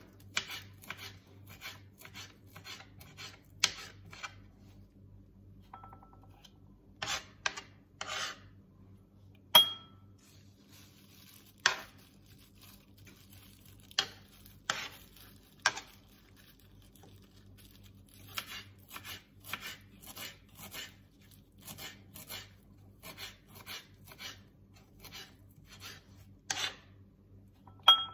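Kitchen knife chopping fresh parsley on a wooden cutting board: runs of quick, light knocks with a few louder single strikes. Twice, the blade taps the rim of a glass bowl with a short ring as the chopped parsley is scraped off into it.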